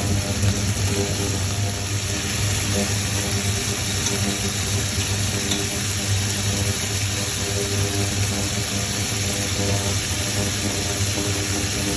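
Beef stir-frying in hot oil in a pan: a steady sizzling hiss over a constant low whirring hum.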